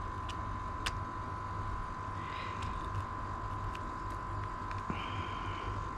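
Battery-powered toothbrush rigged as a foam-pad sander, its motor running with a steady high hum. Twice, a short soft rasp as the fine sanding pad rubs against the polyurethane lure.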